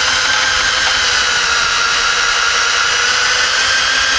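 Cordless electric drill spinning a scissor jack's lead screw, running steadily as it raises the jack. Its whine creeps slightly up in pitch.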